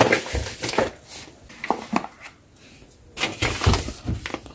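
Spice packets and containers being handled on a kitchen countertop: packets crinkling, with light knocks and clinks as things are picked up and set down, in two busy spells with a quieter gap between.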